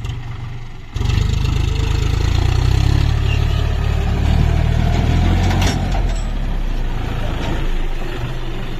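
John Deere 5050D tractor's three-cylinder diesel engine running. About a second in it suddenly gets louder and stays loud, easing off a little near the end.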